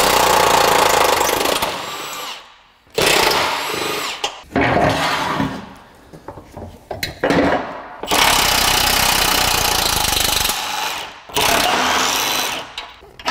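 Cordless impact wrench hammering in several bursts of a second or two each, loosening the lower control arm bolts on a Honda Element front subframe.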